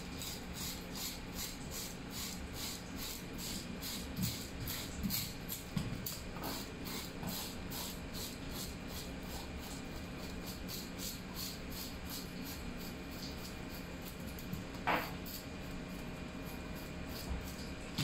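Ring-type fish scaler, coiled serrated steel rings, scraping the scales off a trevally in quick rhythmic strokes, about three or four a second. There is one short, louder sound a little before the end.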